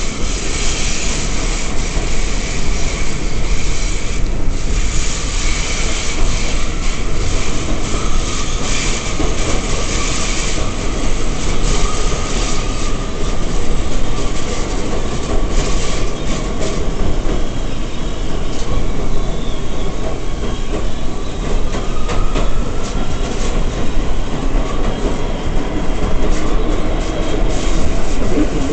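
Inside an R179 subway car running at speed: a steady loud rumble of wheels on the rails with rhythmic clicking over rail joints. A faint whining tone wavers and rises in pitch through the middle.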